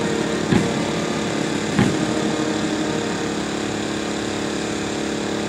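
Steady machinery drone with several constant tones, like engines or generators running at idle. Two short knocks come about half a second and about two seconds in.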